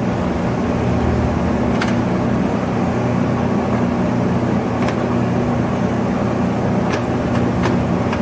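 Weisser 16-inch gap-bed engine lathe running under power, its drive and gearing giving a steady hum, with a few faint clicks.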